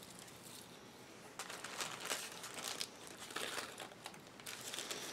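Small plastic bags of sequins crinkling as they are handled, in a run of faint, irregular rustles from about a second and a half in.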